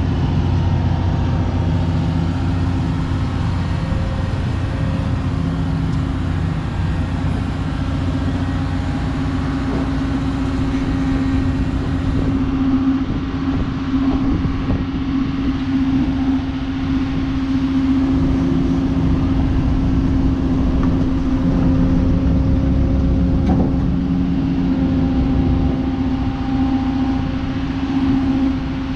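Volvo FMX truck's diesel engine running while driving, a steady low drone that holds one pitch throughout.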